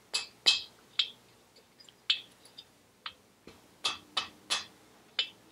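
Light hammer taps on a Vespa PX piston's gudgeon pin, trying to drive it through the connecting rod's small end: about nine short, sharp, unevenly spaced taps. The pin is too tight to push through.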